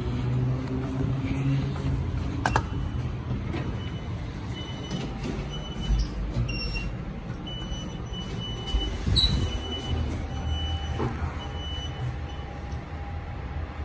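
Passenger lift in use: a steady mechanical hum with a sharp click, a few low knocks and short high electronic beeps as floor buttons are pressed. From about ten seconds in a steady hum sets in as the car starts moving up.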